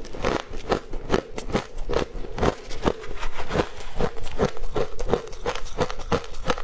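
Close-miked chewing of powdery frozen ice dusted with matcha green tea powder: steady crisp crunching, about four or five crunches a second.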